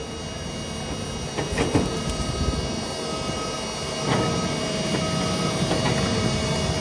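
Cat 323F excavator's diesel engine and hydraulics running steadily with a constant whine as the grapple works a brush pile, with sharp knocks of wood and grapple about a second and a half in and again about four seconds in.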